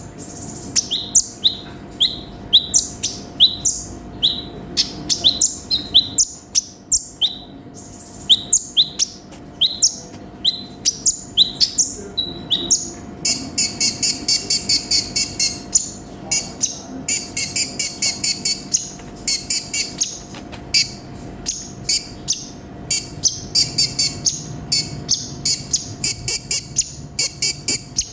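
Olive-backed sunbird (konin) singing: a run of sharp, high repeated chirps at about two to three a second, breaking about halfway through into fast, dense trills that alternate with more chirps.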